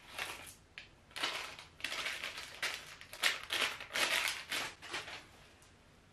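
Clear plastic wrapper crinkling in the hands as it is worked open, in a run of short bursts that stop about five seconds in.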